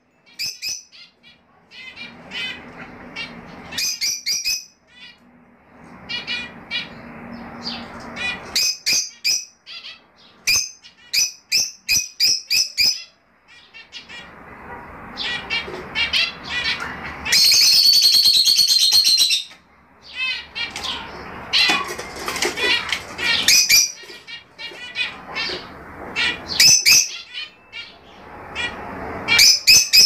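Fischer's lovebirds calling: clusters of sharp, high chirps over stretches of rustling noise, with a loud unbroken burst of shrill calling lasting about two seconds halfway through.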